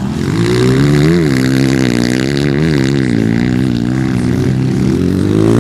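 Motocross dirt bike engine running at high revs, its pitch rising and falling as the rider works the throttle, with sharper rises about a second in and again midway.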